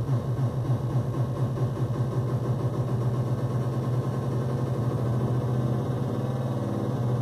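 Three modular synthesizer oscillators, two of them used as LFOs frequency-modulating the third: a low, engine-like buzzing drone with rapidly repeating pitch sweeps above it, shifting as the knobs are turned.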